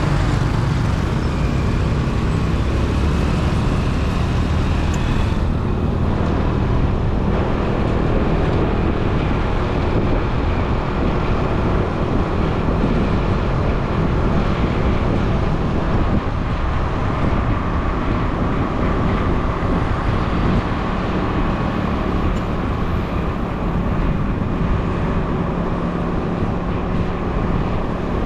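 Motorcycle riding along a city street: its engine runs steadily under the continuous rush of road and traffic noise.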